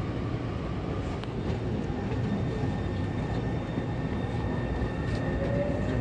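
Taipei Metro C301 train pulling out of a station, heard from inside the car: a steady running rumble, with a motor whine that starts rising in pitch near the end as the train picks up speed.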